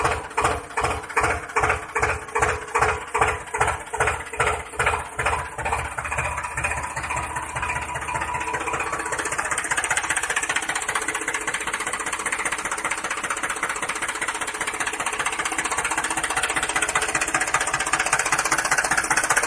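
Tractor engine chugging in slow, even beats about two a second, which quicken after about six seconds into a steady, faster run.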